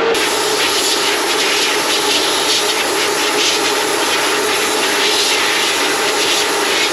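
Sandblast cabinet blast gun firing abrasive with compressed air: a loud, steady hiss with a gritty flicker, cutting in abruptly at the start, over the cabinet's dust-collector fan.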